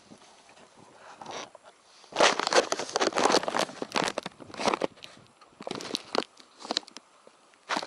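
Close rustling and crackling handling noises: a dense stretch about two seconds in, then scattered short crackles and clicks.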